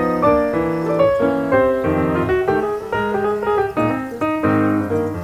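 Background music led by piano, playing a run of quick notes.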